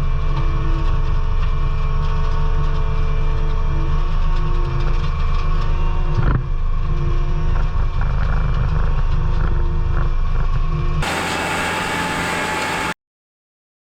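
Skid steer loader running steadily with a flail mower attached, a deep engine sound with a knock about six seconds in. Near the end it changes abruptly to a brighter hissing wash, which then cuts off to silence.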